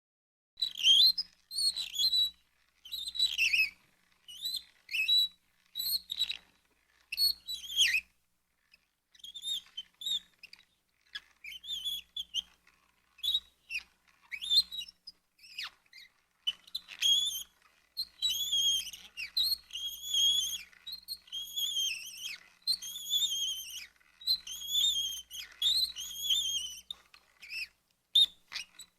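A long run of short, high-pitched whistled chirps and warbling trills in irregular bursts, each note bending up and down.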